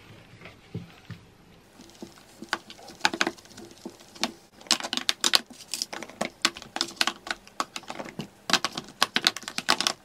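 Makeup palettes and compacts clicking and tapping against each other and a plastic drawer organiser as they are packed back in by hand. The light clicks are sparse at first, then come in quick, dense runs from about halfway through.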